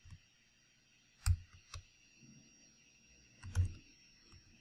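A few scattered keystrokes on a computer keyboard, single taps spaced out with pauses between them.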